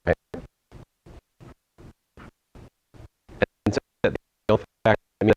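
Faulty recording: the audio cuts in and out in short, evenly spaced fragments about three times a second, breaking a voice into garbled snippets. The snippets grow louder from about three seconds in.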